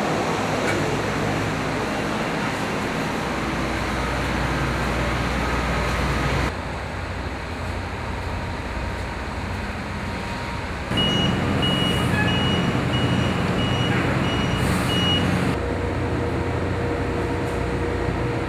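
Steady engine and traffic noise from heavy vehicles, in several short cuts. Past the middle, a vehicle's backup alarm beeps about twice a second for several seconds.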